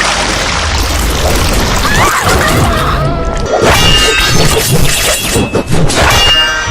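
Music mixed with loud sound effects: a dense rushing noise for about three seconds, then several sharp hits and crashes over the music.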